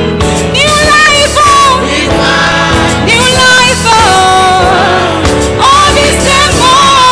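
Live gospel song: a woman sings the lead melody with sliding, ornamented notes, with a choir behind her, over sustained electronic keyboard chords.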